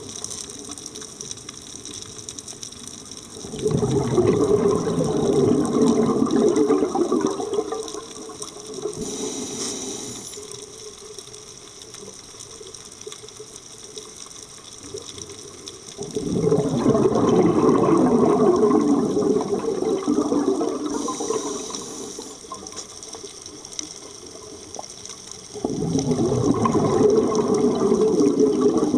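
A scuba diver's own breathing heard underwater through the camera: three long bursts of exhaled bubbles rushing up past the camera, with a quieter hiss of inhaling through the regulator in the gaps between them.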